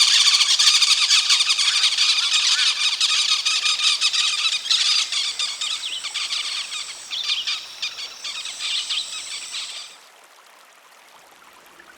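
Ochre-marked parakeets calling: a dense run of high-pitched, overlapping squealing calls that thins out and stops about ten seconds in.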